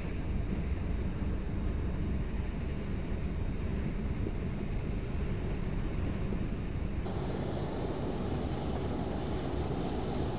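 Steady low rumble of waterfront ambience, with boat motors on the lagoon and wind on the microphone. About seven seconds in it turns brighter and hissier.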